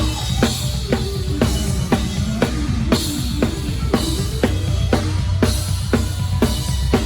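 Live drum kit played in a steady groove with a band, the snare cracking about twice a second over a continuous low bass.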